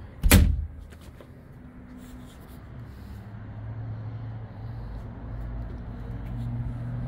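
A single sharp thump about a third of a second in, as the boat's center-console access door to the head compartment is swung shut. After it, only a low steady hum in the background.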